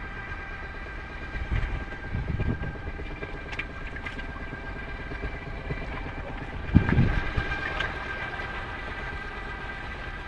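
Steady high whine of a sailboat's electric propulsion motor under way, over a low rush of wind and water. Louder low rushes come and go, the loudest about seven seconds in.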